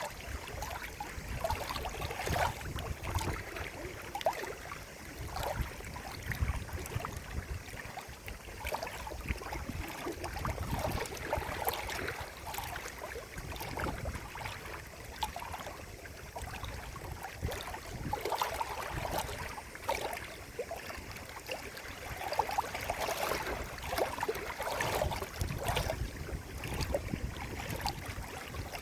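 Water running and gurgling in a steady, irregular patter of small splashes and bubbling.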